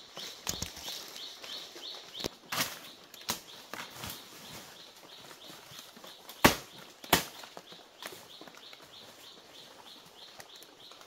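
Dry banana leaves and stalks rustling and crackling as someone moves and works through them, with a few sharp snaps, the two loudest about six and seven seconds in. A high, repeated chirp at about three to four a second runs behind it and fades out after about eight seconds.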